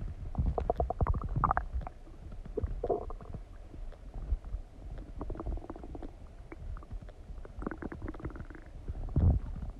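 A person's stomach gurgling and rumbling while digesting after eating, in irregular bursts of fast, bubbly crackles with a low rumble underneath, the loudest burst near the end.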